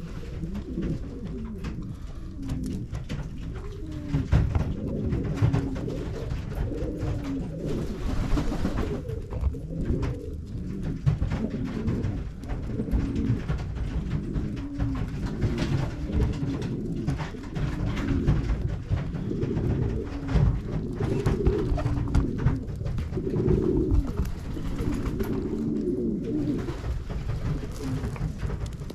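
A flock of domestic pigeons cooing, many low, rolling coos overlapping and repeating.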